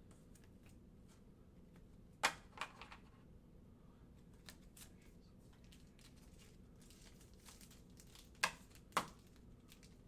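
Quiet handling noise on a tabletop: faint rustling with a few sharp taps or clicks, a pair about two seconds in and another pair near the end.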